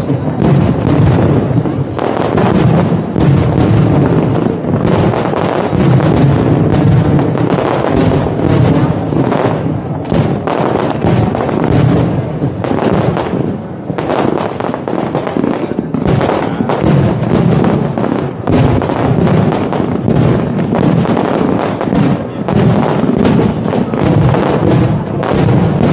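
Fireworks display: many shells and firecrackers bursting in rapid, dense succession, several reports a second over a continuous rumble.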